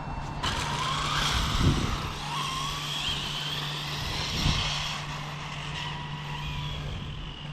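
A full-size car driving past on the road: tyre and engine noise swells about half a second in, holds, then eases off.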